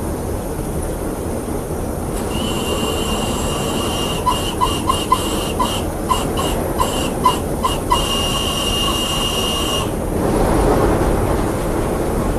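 LNER V2 steam locomotive 'Green Arrow' running with its train, its whistle sounding one long steady note for about eight seconds. The note starts about two seconds in and stops sharply, with a quick run of short clicks in its middle.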